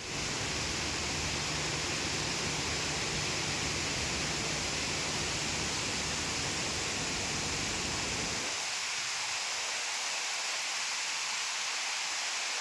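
Steady rain falling, an even hiss, with a low rumble underneath that drops away about two-thirds of the way through.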